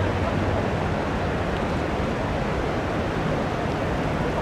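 Steady city traffic ambience, an even rush of road noise with a low vehicle engine hum that fades about half a second in.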